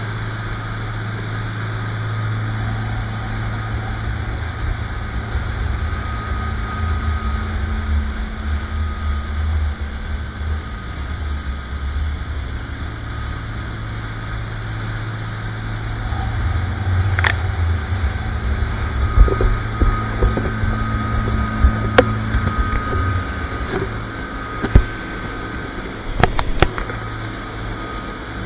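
SeaVee center-console boat running at speed: a steady low drone of its engines under the rush of water and spray off the hull, with several sharp knocks in the second half.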